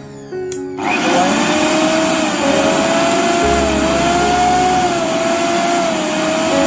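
Bosch mixer grinder's motor switched on about a second in and running without a load: a loud high-speed whine over rushing air, its pitch wavering slightly.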